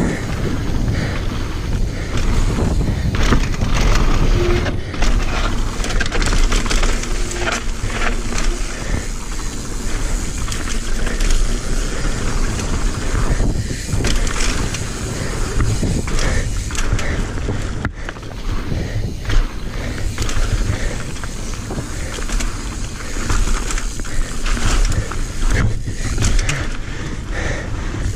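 Mountain bike rolling fast down a dirt trail: tyres rumbling and crunching over the dirt, with the bike rattling and clattering all the way over the bumps.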